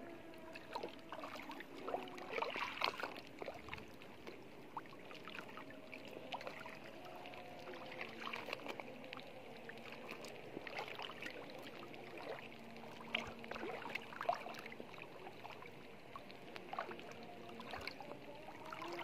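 Feet wading through shallow seawater: irregular splashes and sloshing as the water is stepped through, loudest between about two and three seconds in.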